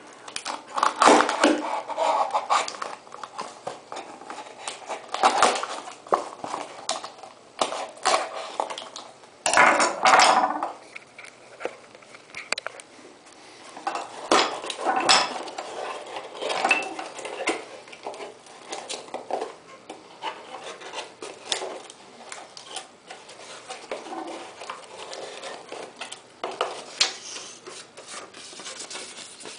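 A small cardboard box being handled and opened on a hard countertop: irregular scrapes, taps and rustles of cardboard and paper, louder in clusters about one, five, ten and fifteen seconds in.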